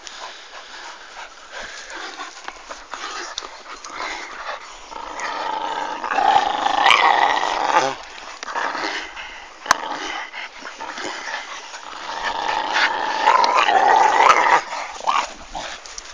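Two Staffordshire bull terriers growling as they play-fight over a stick, the growling swelling into two louder spells, one about a third of the way in and another toward the end.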